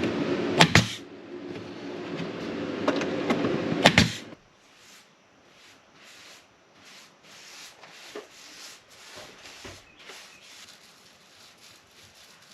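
Kitchen range hood fan running with a steady rush, with a sharp click under a second in and another just before it stops abruptly about four seconds in. After that come only faint, scattered light taps and knocks.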